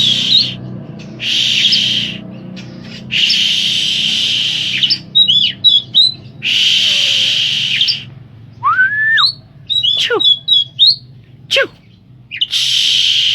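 Oriental magpie-robin (kacer) singing: harsh, rasping phrases about a second or two long, four times, with quick chirps and whistled slides between them.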